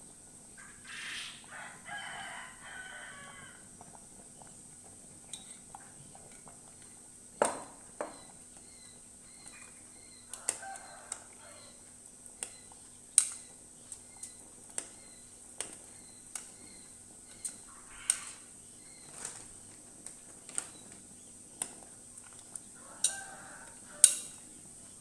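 A metal spoon clinks sharply against a cooking pot while stirring, in taps roughly a second apart. A rooster crows in the background about a second in, and shorter calls follow later.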